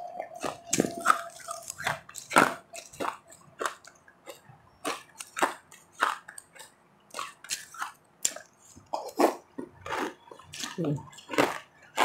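Close-up chewing of refrozen powdery ice: a long run of irregular crisp crunches between the teeth.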